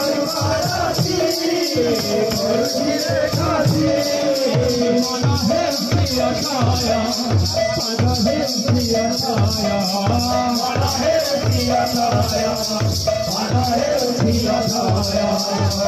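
Live kirtan music: a drum keeps a fast, even beat under ringing hand cymbals, with a sustained melody line above.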